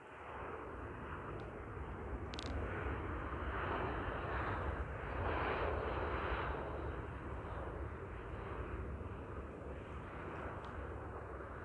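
Airbus A319's twin jet engines on the runway, roaring up to a peak about five to six seconds in and then easing to a steady rumble, as reverse thrust slows the airliner on its landing rollout.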